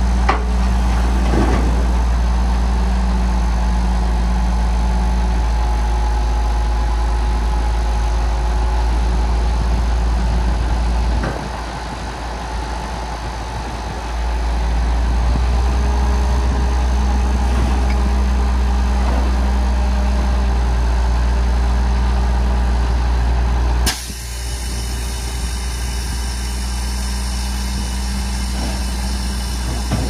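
Heavy diesel engine of earthmoving machinery running steadily with a strong low hum. It eases off for a few seconds about a third of the way in, and the sound shifts abruptly about four-fifths of the way through.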